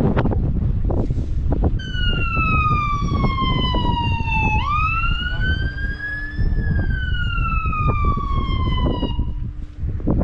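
Police siren wailing, starting about two seconds in: one slow falling sweep, a sudden jump back up into a rising sweep, then another slow fall before it stops near the end. It sounds over a heavy wind rumble on the microphone.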